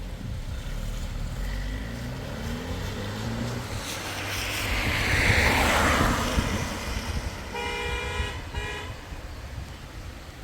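Vehicle engine running, and a swell of noise rises and fades as a vehicle passes. Near the end a car horn gives two short toots, the second briefer.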